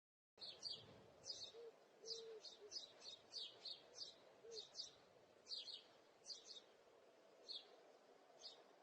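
Small birds chirping faintly: short, high chirps, often in quick pairs, about one or two a second over a faint hiss. They start a moment after dead silence.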